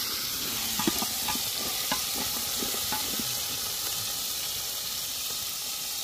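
Food frying with a steady sizzle, with a few light knocks scattered through it.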